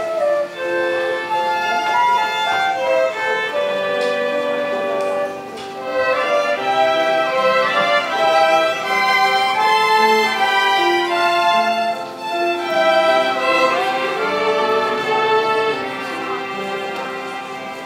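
Closing bars of a choir song with instrumental accompaniment: held, sustained notes that grow quieter over the last couple of seconds as the piece ends.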